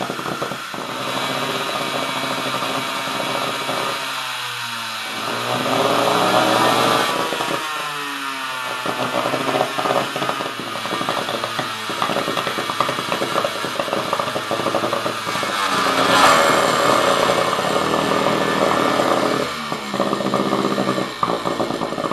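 Stripped Makita 5007 circular saw motor, fed power straight to its brushes with no gear reduction, running flat out as it fails: a harsh, crackling whine whose pitch sags and recovers twice, then gets louder about sixteen seconds in. The overdriven motor is not happy and is coming apart.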